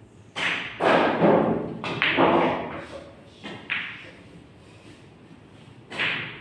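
A pool shot on a Brunswick table: the cue tip strikes the cue ball, balls clack together, and an object ball drops into a side pocket. It is a string of sharp knocks and thuds, the first about half a second in and the last near the end, each ringing briefly in a large room.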